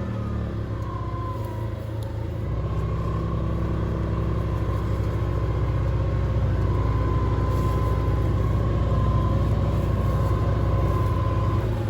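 A vehicle engine running under way, its note stepping up about two and a half seconds in as it picks up and holding there, with a steady high whine over it.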